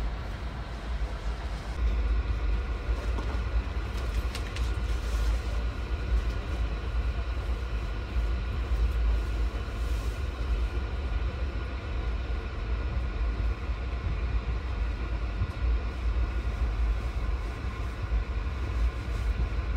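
Steady hum and low rumble inside a Sunrise Seto Express sleeper car standing at the platform, with a few faint clicks about four seconds in.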